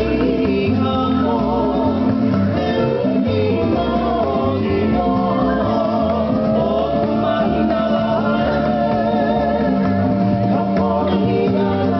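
Hawaiian hula song: a voice singing over plucked guitar and a steady bass line.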